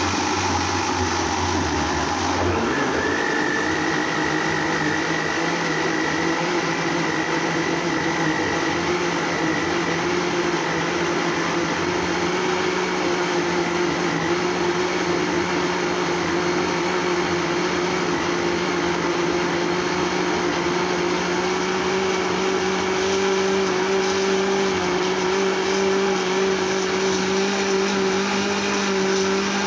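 Russell Hobbs countertop jug blender running steadily, chopping cucumber, lime and ginger chunks in water into a smooth purée. Its motor hum creeps slowly higher in pitch as the chunks break down, with a thin high whine for the first several seconds.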